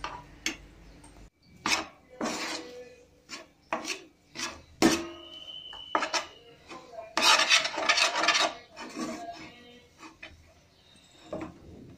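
Metal spoon scraping and knocking against a frying pan while stirring thick, lumpy semolina dough as it cooks, in irregular strokes, with a longer run of scraping about seven seconds in.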